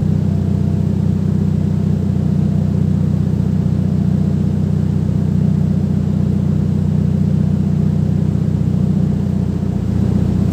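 2018 Hyundai Elantra's exhaust through its fitted muffler, the engine idling steadily with an even low drone.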